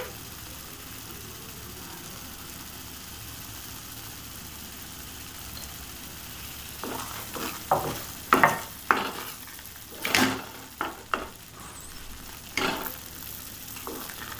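Thick papaya halwa sizzling softly in ghee in a kadai. From about seven seconds in, a wooden spatula stirs and scrapes it around the pan in a run of short, sharp strokes.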